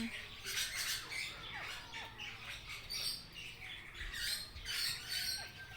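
Many parrots calling in a free-flight aviary: a dense chatter of short, high chirps and calls overlapping one another.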